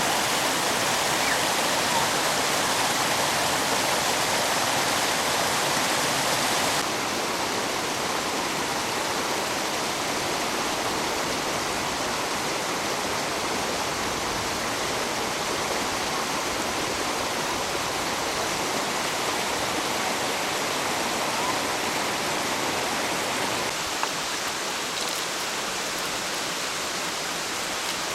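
Mountain stream water rushing steadily, an even hiss. It drops a step in level suddenly about seven seconds in, then runs on.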